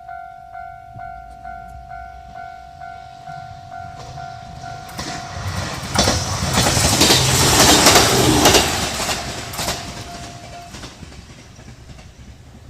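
Japanese railway level-crossing alarm bell ringing in a steady repeating pattern while a train passes over the crossing. The train rises to a loud rush with wheel clatter in the middle and then fades, and the bell cuts off shortly after it has passed.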